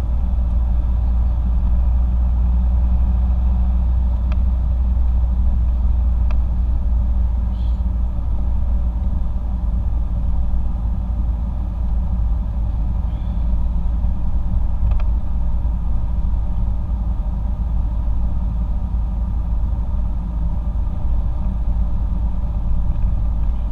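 Car driving on the open road, heard from inside the cabin: a steady low rumble of tyre and engine noise, with a few faint ticks.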